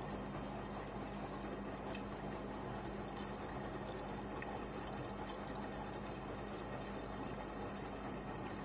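Panasonic front-load washing machine running, with a steady rush of water and a constant low hum.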